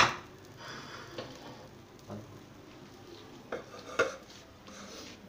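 Kitchen utensil and pan clatter as a pizza is lifted off a tawa griddle: a sharp metal clank, then several lighter knocks and scrapes.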